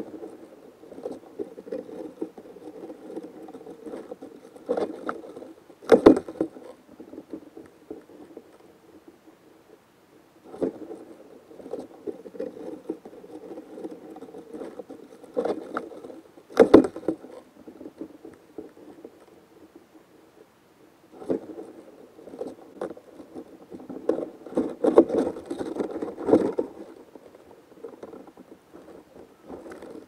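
A praying mantis and the Japanese grass lizard it is gripping and chewing, recorded close up on a leaf: crackling, rustling and scraping in three bouts, each with one sharp knock, separated by quieter pauses.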